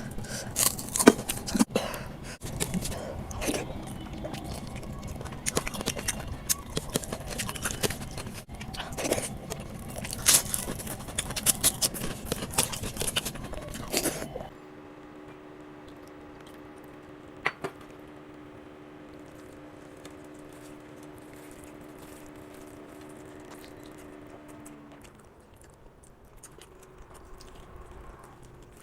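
Close-miked eating of rice and chicken curry: chewing and crunching with many sharp clicks and crackles for about fourteen seconds. It then cuts abruptly to a steady hum with a few held tones and one sharp click, which fades quieter near the end.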